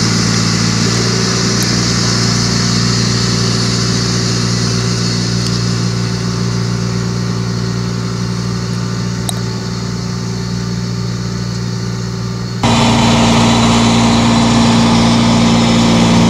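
John Deere tractor's diesel engine running steadily as the tracked tractor pulls a planter that is spreading pelleted fertilizer. About three-quarters of the way through the engine suddenly becomes louder and higher in pitch.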